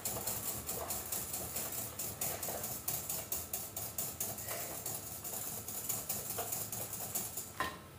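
Wire whisk beating a cake mixture in a bowl, a quick, steady rhythm of scraping strokes against the bowl's sides.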